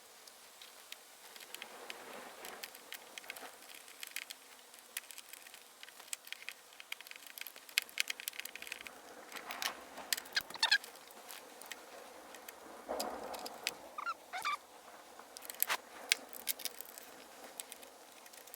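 Small metallic clicks and taps, irregular and clustered, as a wrench works the nut on a hood hinge bolt. A few short squeaks come around the middle and later.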